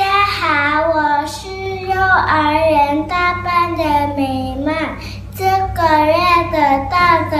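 A young girl's voice reciting in a sing-song, chanting way, in short phrases with brief pauses, over a steady low hum.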